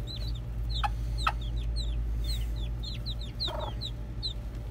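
Baby chicks peeping over and over in short, high, falling cheeps, with a hen giving a brief cluck about three and a half seconds in. A steady low hum runs underneath.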